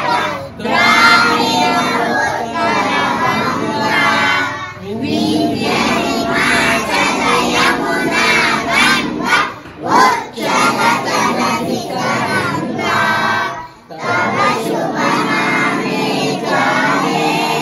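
A large group of young schoolchildren singing together in unison, in phrases broken by brief pauses about every four to five seconds.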